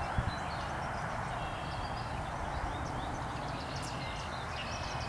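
Songbirds chirping, with a few short trills, over a steady hum of honeybees.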